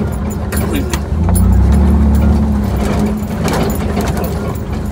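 Willys truck driving on a rough dirt track: the engine runs steadily and swells louder for about a second near the start, with clicks and knocks from loose parts over the bumps. The rattle is one the owner traced to a Hi-Lift jack that had wiggled loose on the roof.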